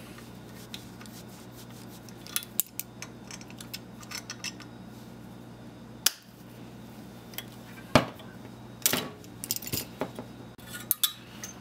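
Metal hand tools and faucet parts handled on a bench: scattered clicks and clinks of locking pliers and brass fittings, with two sharp knocks about six and eight seconds in and a flurry of clinks near the end. A steady low hum runs underneath.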